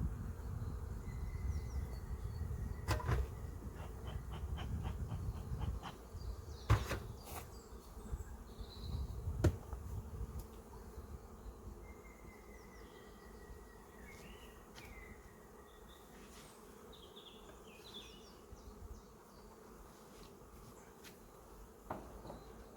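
Honey bees buzzing around an open hive during an inspection, a dense hum that is louder for the first six seconds and then eases off. A few sharp knocks and clicks cut through it, and faint high chirps sound in the background.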